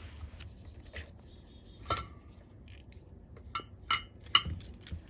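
Small tools and parts handled at a soldering bench: a few sharp clicks and clinks, the loudest near the end.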